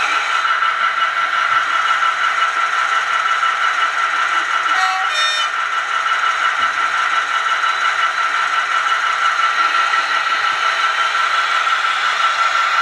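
Steady whirring and rattling from an HO model railway, with a constant high whine throughout and a short beep-like tone about five seconds in.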